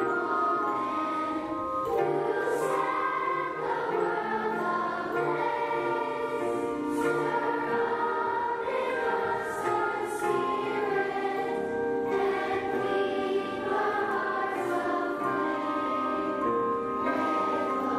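Choir singing, with long held notes that change every second or two.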